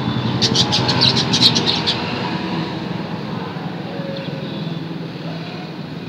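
Budgerigars chirping: a quick run of about ten short, high chirps in the first two seconds, then a few faint ones, over a steady low background hum.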